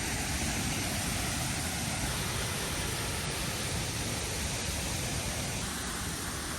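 Steady rushing noise of water pouring over falls.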